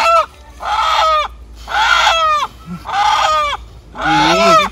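A rooster squawking while held in the hands, with four or five loud, harsh calls about a second apart, each sliding down in pitch.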